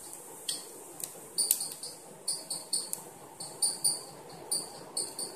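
Cumin seeds sizzling in hot oil in a pan, with scattered sharp crackles and pops. A high chirping repeats in short clusters throughout, on top of the sizzle.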